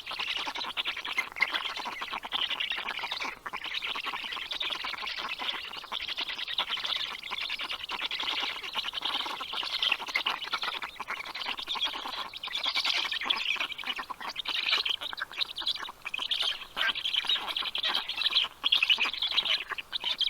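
Nestling birds in a nest squawking continuously in rapid, overlapping calls, the insistent chatter of baby birds begging.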